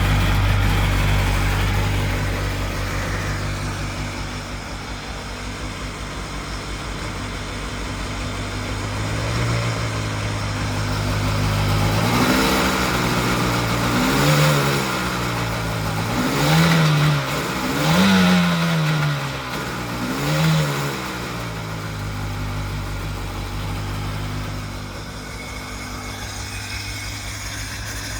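Freshly rebuilt 951cc two-stroke twin of a 2002 Sea-Doo Sportster LE jet boat idling, then blipped up about five times in quick succession around the middle before dropping back to a steady idle.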